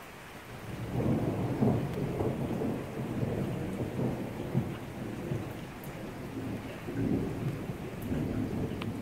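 Thunder rumbling over steady rain. The low roll builds about half a second in, is loudest a second or two in, then keeps rolling in waves.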